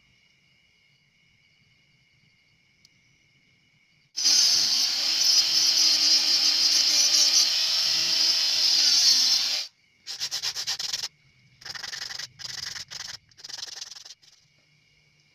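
Mini rotary grinder with a thin cut-off disc cutting a small hand-held piece: a loud steady rasp for about five seconds starting about four seconds in, then a run of short touches of the disc, stopping a second before the end.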